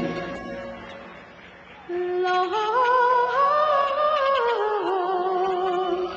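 Performance music. A held chord fades out over the first second or two, then a slow melody line comes in about two seconds in, climbing step by step and falling back.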